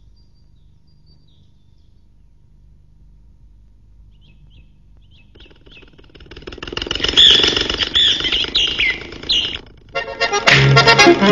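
Animated cartoon soundtrack: a few faint bird-like chirps, then louder chirping whistles over a noisy rush of sound, and accordion music starting about ten seconds in.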